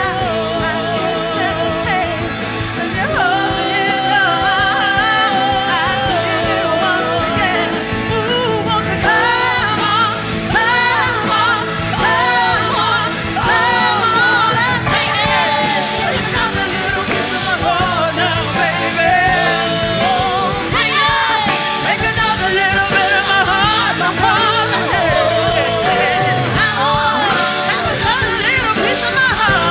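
A song playing: a singing voice over instrumental backing with a steady beat.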